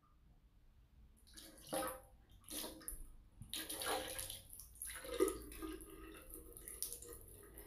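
Water poured from a plastic PET bottle into a glass vase of orchid roots, starting about a second in, in uneven spurts at first and then running more steadily as the vase fills.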